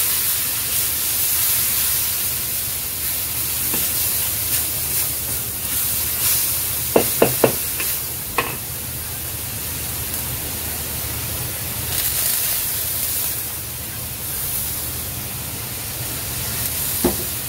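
Spice paste frying in a wok with a steady sizzle as it is stirred and scraped with a wooden spatula. Three quick sharp knocks about seven seconds in, another a moment later and one near the end, from the spatula striking the wok.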